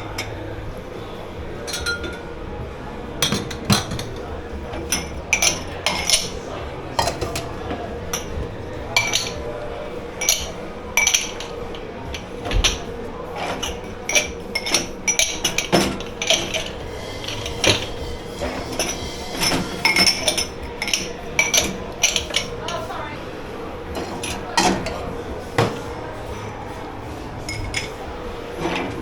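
Crockery and cutlery clinking and clattering over and over as they are handled and stacked in a dish pit, over a steady background hum.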